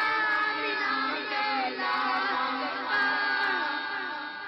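A man singing a naat without instruments through a microphone and PA, in long drawn-out notes that bend and waver; the singing eases off near the end.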